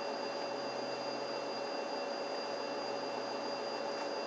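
Steady machine hum with a few constant whining tones over it, unchanging in level throughout.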